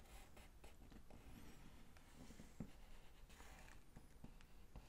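Faint scratching of a dark pencil drawing lines on paper in several short strokes, with one soft thud about two and a half seconds in.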